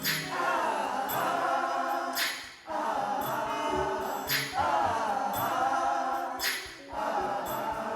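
A church choir singing a gospel song in long held phrases of about two seconds each, with short breaths between them.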